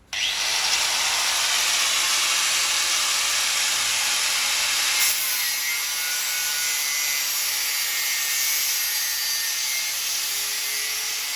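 Angle grinder cutting through a steel-wire-reinforced high-pressure hydraulic hose, starting abruptly and running steadily under load.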